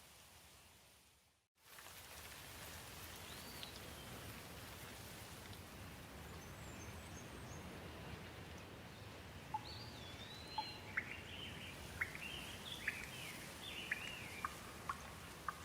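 Steady rain hiss with songbirds chirping, the chirps sparse at first and coming thick and fast in the second half. The ambience fades out to silence and starts again about a second and a half in.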